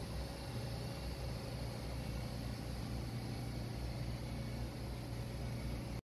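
Ship's air-conditioning compressor running with a steady low machine hum and a faint constant whine, mixed with the general noise of the surrounding engine-room machinery.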